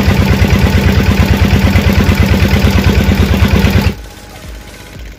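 Engine of a wooden lake boat running steadily and loudly, with a fast, even pulsing beat and a deep hum. About four seconds in it drops away abruptly to a much quieter background.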